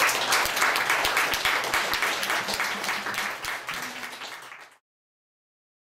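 Audience applauding, the clapping slowly fading and then cutting off abruptly about five seconds in.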